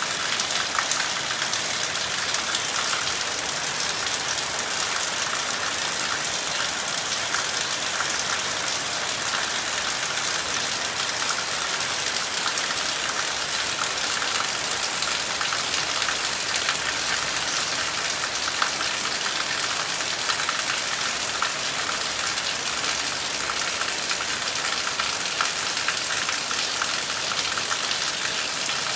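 Heavy rain falling steadily on trees and roofs: a dense, even hiss of countless drops pattering, with no thunder.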